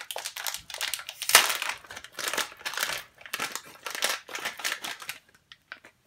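Plastic wrapping crinkling and rustling as it is pulled open by hand, in repeated bursts, loudest about a second and a half in. The rustling dies away near the end, leaving a few short clicks.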